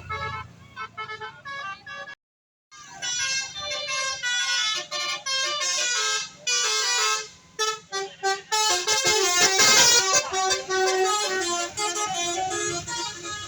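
A bus's telolet basuri horn playing a quick stepping melody of loud horn notes. It cuts out briefly a little over two seconds in, and there is a burst of noise around nine seconds in.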